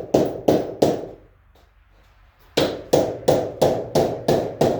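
Repeated hammer blows, about three a second. There are three strikes, a pause of about a second and a half, then a second run of about seven strikes, each with a short ringing tail.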